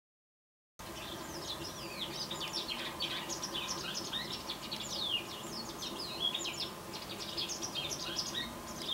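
Recorded white wagtail calls: a dense run of rapid, high, sharp chirps and twitters, starting about a second in.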